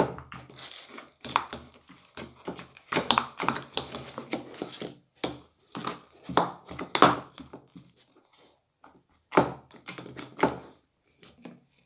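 A spoon knocking and scraping in a container of homemade borax slime: irregular taps and thunks with short squishy bursts.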